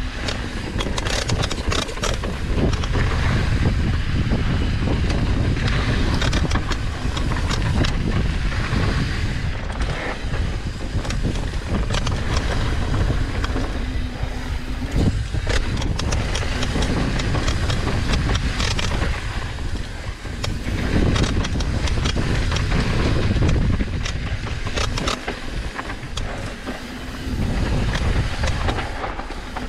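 Downhill mountain bike descending a hard-packed dirt trail at speed: wind buffeting the camera microphone as a steady low rumble, tyres rolling and skidding over dirt, and frequent rattles and clanks from the bike over bumps.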